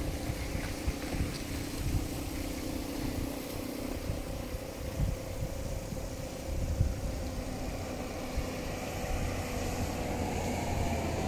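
Wind buffeting the microphone in irregular low rumbles over a steady faint hum.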